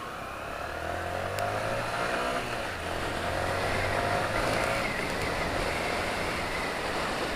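125cc single-cylinder four-stroke motorcycle engine pulling away, its pitch rising, dropping at an upshift about two and a half seconds in, then rising again before settling to a steady cruise.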